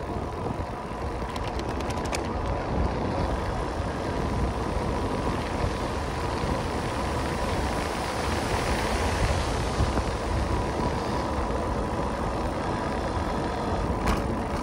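Steady rushing road noise from riding a road bike down a highway, with a faint steady whine. The noise swells slightly a little past the middle.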